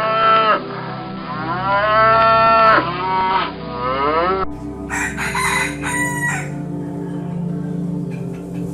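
A cow mooing in long calls that rise and fall, the longest about a second and a half. About four and a half seconds in it cuts to chickens clucking.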